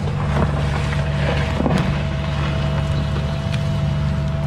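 Cat mini excavator's diesel engine running steadily under digging load, with a steady hydraulic whine and a couple of short knocks and scrapes about half a second and a second and a half in.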